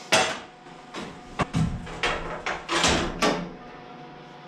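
Sheet-metal side panel of a Kubota L2350 tractor being worked loose and lifted off: a string of sharp metal knocks and rattles that stops about three and a half seconds in.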